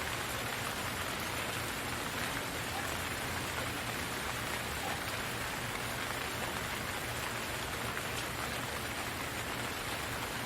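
Steady rain falling, an even hiss of drops on a surface with no change in strength.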